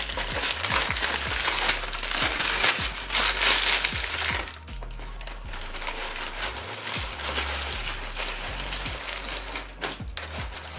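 Tissue paper crinkling and rustling as it is pulled open inside a cardboard shoebox, loudest over the first four seconds or so and softer after that.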